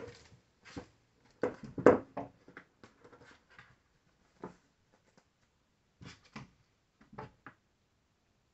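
Kitten playing at the curtains: a series of short bumps, scrabbles and rustles as it jumps and paws at the fabric and the wall. The loudest knocks come about two seconds in, then the noises thin out to a few faint taps.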